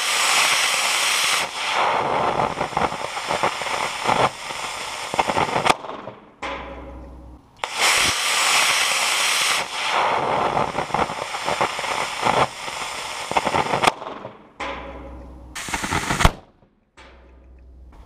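Solid-fuel model rocket motor burning on a thrust stand: a loud crackling hiss of thrust lasting several seconds that ends in a sharp bang as its ejection charge fires. The burn and bang are heard three times over, the last one short.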